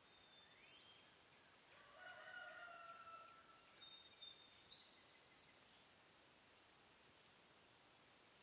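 Faint chicken call: one drawn-out call about a second and a half long, starting about two seconds in. High, short chirps of small songbirds come around and after it.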